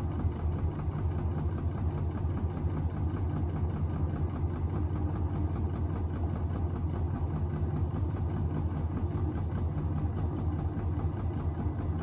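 Bauknecht WAP9988 front-loading washing machine running its wash: the drum turns with laundry in sudsy water over a steady low motor hum.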